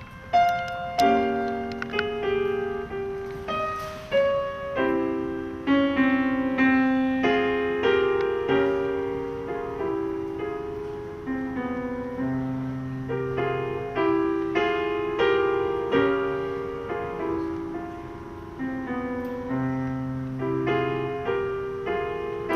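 Solo piano playing slow chords with a melody on top, each chord struck and left to ring and fade.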